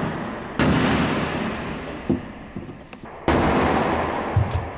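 Two heavy blows on the sheet metal of a VW Golf Mk2's door area, about two and a half seconds apart, each ringing and echoing for over a second, with a few lighter knocks between and near the end: a stuck part being knocked loose by brute force.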